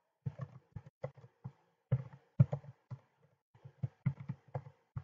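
Typing on a computer keyboard: a quick, irregular run of keystrokes, with a short pause about three seconds in.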